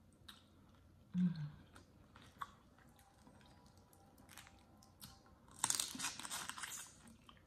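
Close-up eating sounds of boiled crawfish being peeled and eaten: scattered clicks and cracks of shell worked by hand, a short thump about a second in, and a dense run of crackling chewing and mouth sounds lasting about a second and a half near the end.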